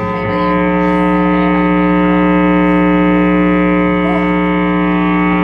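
Electric guitar amplifier droning steadily: a loud, held chord of several tones that does not fade, typical of a guitar left feeding back through its amp while it is not being played.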